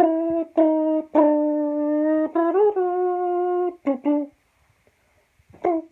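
A man's voice imitating an iPhone ringtone melody: a string of held, horn-like sung notes at a nearly steady pitch, with a brief upward bend midway, then a pause of about a second and one more short note near the end.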